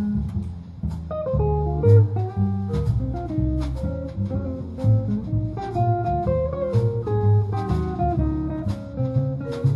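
Small jazz band playing live: a guitar carries a single-note melody line over a walking bass and a steady rhythm accompaniment.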